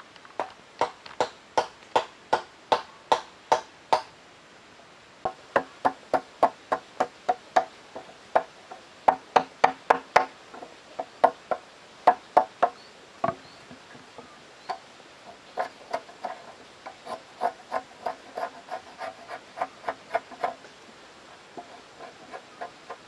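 Wooden mallet striking a steel chisel into a timber beam: sharp wooden knocks about two to three a second, in runs with short pauses. The blows turn lighter in the second half.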